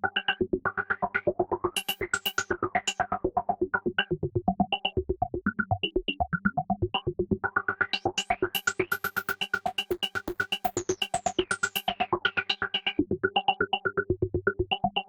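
D16 Lush 2 software synthesizer playing a preset: a fast, even run of short notes, about eight a second, over a held low note. The sound turns brighter and busier from about halfway through, then settles back near the end.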